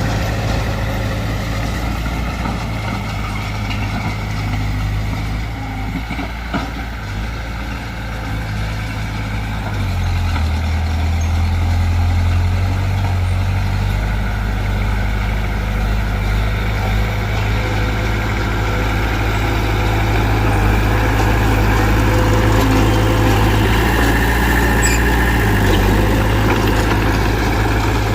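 Heavy diesel engines of a bulldozer and dump truck working, running steadily with a deep drone. The engine note shifts about ten seconds in and grows louder later on.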